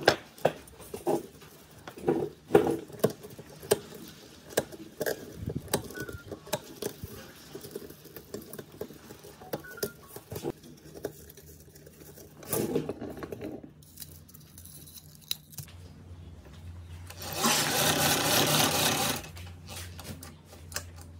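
Old copper wire windings being pulled and snipped off a small electric motor armature held in a metal vise: scattered clicks, snips and scrapes. Near the end comes a louder rasping noise lasting about two seconds.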